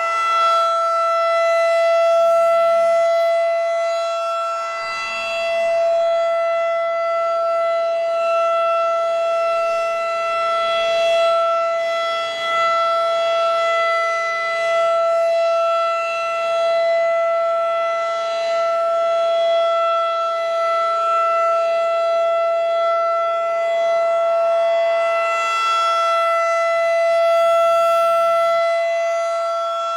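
Battery-powered Federal Signal 2001-DC outdoor warning siren sounding a steady tone at a constant pitch during a routine test. Its loudness swells and dips every few seconds as the rotating head sweeps round.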